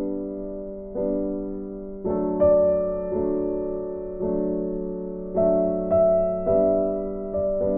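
Background music: a slow, soft piano piece, notes and chords struck roughly once a second and left to ring out.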